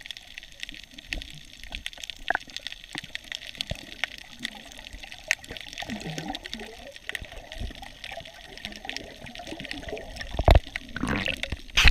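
Underwater sound picked up by a submerged camera: faint water noise with a steady crackle of small clicks. A bump about ten and a half seconds in, then louder water sound near the end as the camera nears the surface beside a swimmer.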